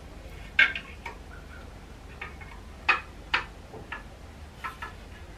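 A few sharp clicks and light knocks at irregular intervals, the loudest about half a second in and near three seconds in: a level being handled and set against the wall.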